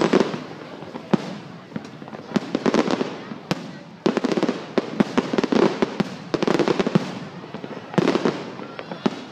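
Aerial fireworks going off: a run of sharp bangs, with clusters of dense crackling every second or two.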